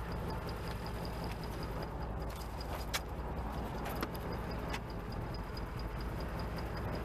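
An engine idling with a steady low hum and a fast, even high ticking, about five ticks a second. Three sharp clicks come about three, four and five seconds in as a hand works at a car battery being tested.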